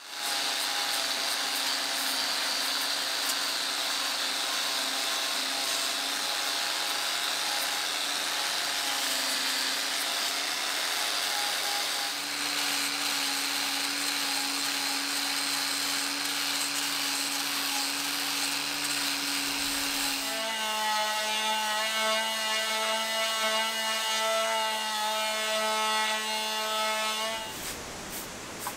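Cordless 18V angle grinder with a sanding disc running against the wooden rim of an old wagon wheel, a steady motor whine with a grinding rasp. The whine shifts lower in pitch about halfway through and again about two-thirds of the way in, and stops shortly before the end.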